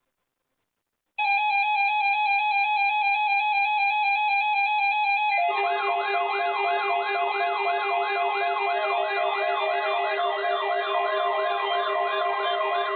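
Electronic siren-style alert sound starting about a second in: a pulsing, buzzy steady tone, joined about four seconds later by a fast up-and-down yelping sweep repeating about four times a second over steady tones.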